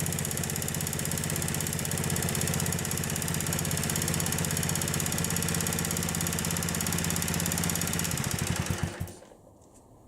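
Honda Benly CD50S's small air-cooled single-cylinder four-stroke engine idling steadily, then shut off and dying away about nine seconds in.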